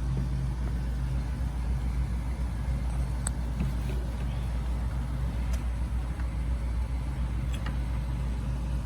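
A steady low motor hum, with a few faint clicks about three, five and a half, and seven and a half seconds in.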